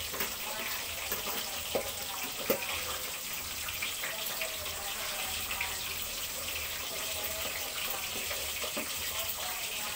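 Coconut-milk sauce simmering in a metal pan on a gas stove as it reduces and thickens, a steady bubbling hiss with small crackles. Two sharp knocks of a metal spatula against the pan come about two and two and a half seconds in.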